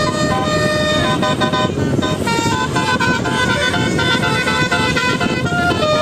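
A bus's Basuri telolet horn, a multi-tone electric horn, playing a quick tune of short stepped notes, several pitches at once, over a steady low rumble.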